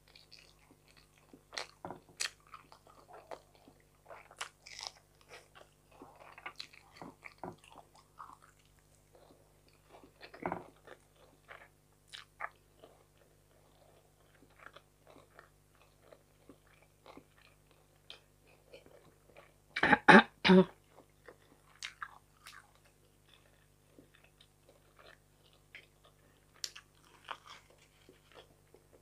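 Close-up eating sounds: chewing and crunching of fried fish and rice, with small clicks and crackles as fingers pick the fish apart on the plate. About twenty seconds in comes a louder cluster of several sharp sounds.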